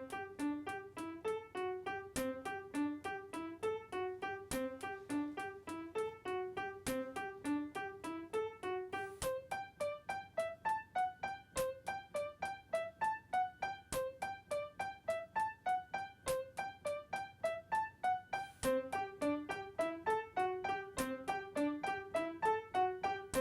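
Background piano music: a steady run of light notes, several a second, over a lower accompanying line that drops out for a stretch in the middle.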